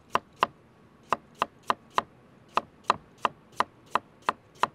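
Chef's knife slicing a carrot into thin rounds on a plastic cutting board: about a dozen sharp knife strikes on the board, roughly three a second, with two short pauses.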